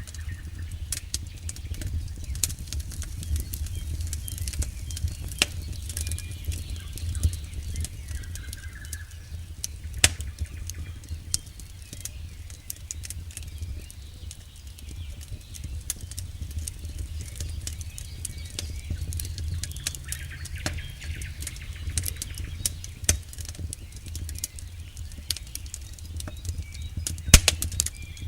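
Wood campfire crackling: irregular sharp snaps and pops from burning logs, with louder pops about ten seconds in and near the end, over a low steady rumble.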